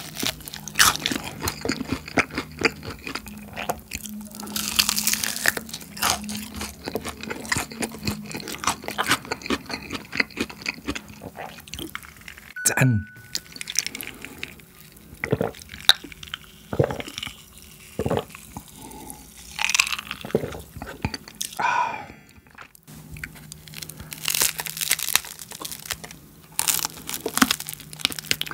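Close-miked crunching and chewing of seasoned fried chicken, the crisp coating crackling with each bite. Partway through, the eating pauses for a drink from a glass of cola, then the crunching picks up again.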